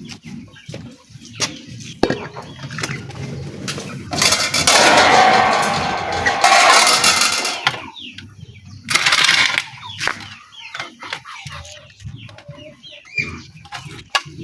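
Washing water poured out of a basin in a loud rush lasting about four seconds, then a shorter splash a second later. Toward the end, chickens cluck in the background.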